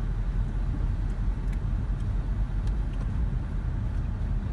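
Steady low rumble of a car heard from inside its cabin, with the engine and road noise running evenly in slow traffic.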